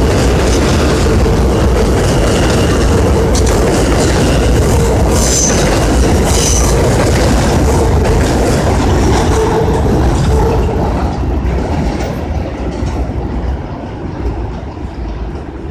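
New York City subway train running past close by on an elevated line, a loud steady rumble of wheels on rails with a high wheel squeal that comes and goes. After about ten seconds the rumble fades as the last cars pull away.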